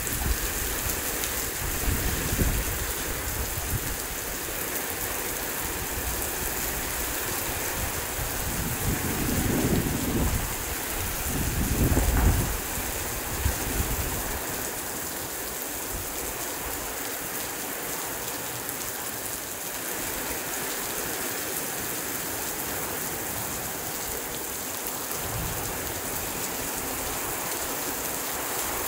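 Heavy rain pouring steadily. Low rumbles of thunder come a couple of seconds in, again around ten seconds in, and loudest about twelve seconds in; after that the rain goes on alone.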